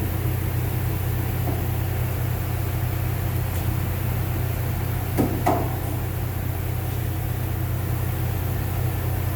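A machine running with a steady low hum, with two light knocks about five seconds in.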